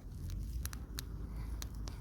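Campfire crackling: sharp, irregular pops and snaps a few times a second over a low steady rumble.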